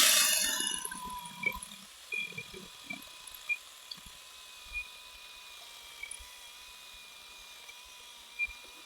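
Cordless electric pole saw's motor winding down after a cut, fading away over about a second and a half. Then only a faint steady high whine and a few small knocks and taps.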